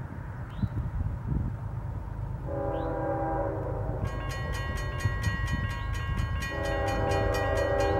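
Horn of an approaching CSX freight train led by GE Evolution-series locomotives, blowing for the grade crossing: a chord of steady tones starts about two and a half seconds in and swells again near the end. From about four seconds in, a crossing bell rings rapidly and evenly.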